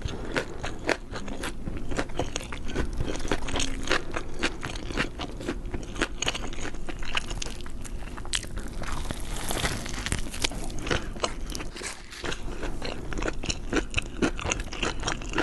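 Close-miked eating: a person biting and chewing crunchy food, with a dense, irregular run of sharp crunches and crackles.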